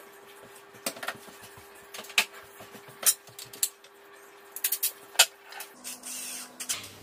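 Scattered sharp clicks and knocks as a cordless drill and its bit are handled, with a short hiss a little before the end.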